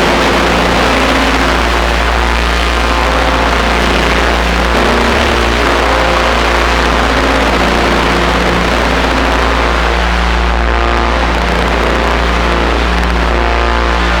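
Ambient music from eurorack modular synthesizers: a dense, steady drone with a deep bass tone under slowly shifting held notes and a hissing wash of noise.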